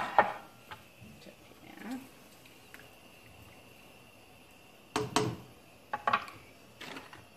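Kitchen utensils and cookware knocking at the stove: a sharp knock at the start, then a cluster of clatters and knocks about five to seven seconds in, over a faint steady high whine.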